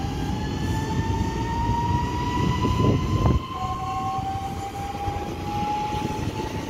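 Electric multiple unit pulling away, its traction motor whine rising steadily in pitch over a low rumble. Just over three seconds in the whine drops back down and begins climbing again as the train gathers speed.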